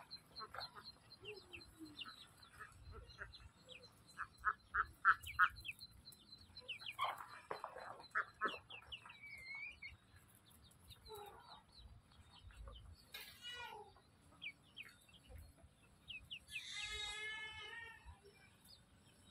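Farmyard poultry calling: a run of short clucks and calls, loudest in a quick series of four about five seconds in, with faint high peeps throughout and one longer, drawn-out call near the end.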